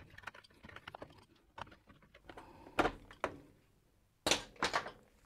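Hard plastic clicks and rattles as a washing machine's plastic water inlet valve assembly is twisted and worked free of its mounting. There is a sharper knock about three seconds in and a cluster of louder knocks just after four seconds as it comes out.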